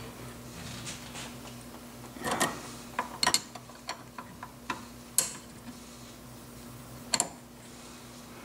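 Metal clicks and clinks of a 9/16 flare-nut wrench working a steel brake line fitting tight at a brake master cylinder. The sharp ticks come irregularly, most of them between about two and five seconds in, with a last pair near seven seconds.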